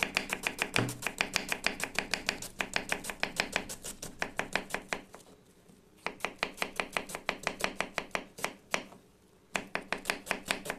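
Kitchen knife chopping an onion into thin slices on a wooden cutting board: quick, even cuts about six a second, knocking on the board, broken by two short pauses.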